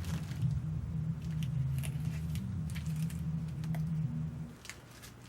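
Plastic packaging crinkling and rustling in irregular small clicks as items are handled and unwrapped, over a steady low hum that stops about four and a half seconds in.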